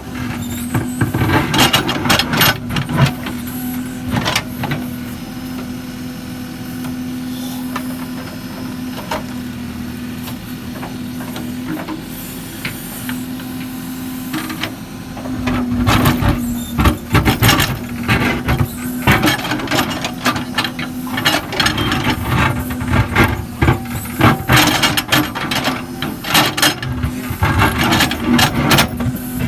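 Case 770 backhoe loader's diesel engine running steadily, with frequent knocks and clatter from the machine working. The knocking is sparse at first and gets louder and busier from about halfway.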